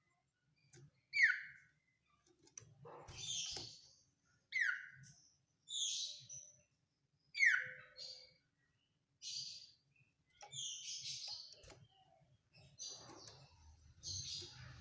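Common iora (cipoh) singing a run of separate whistled and trilled phrases with short silences between them. Three of the phrases are sharp notes sliding down in pitch; the rest are higher, buzzier trills.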